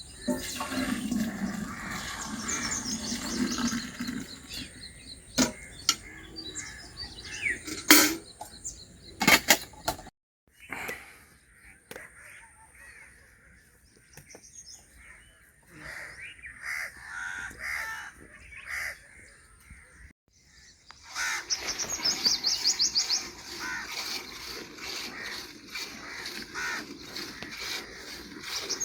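Birds calling, with crows cawing and rapid high chirping trills, broken by a few sharp knocks in the first third.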